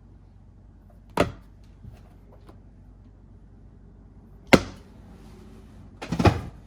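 Plastic disc golf discs being handled and set down on a stack: a knock about a second in, a sharper, louder clack near the middle, and a short rattling clatter near the end.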